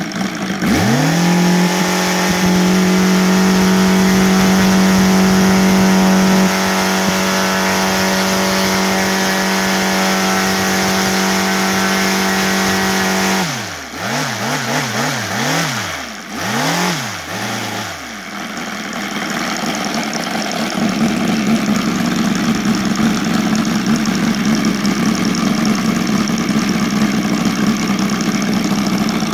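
OS Sirius 7 FR7-420 seven-cylinder four-stroke radial model-aircraft engine, converted to run on gasoline, turning a 24x10 propeller. It is snapped from idle to full throttle about half a second in, runs at a steady high pitch for about thirteen seconds, and is then throttled back. A few quick rises and falls in revs follow, and for the rest it runs at a lower, rougher speed.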